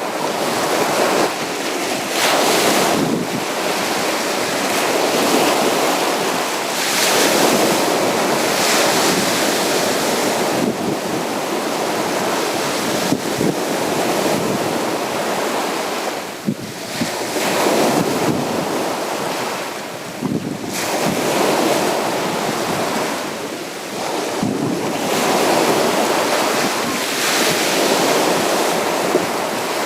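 Sea waves breaking and washing up a beach, a continuous surf that swells and eases every few seconds.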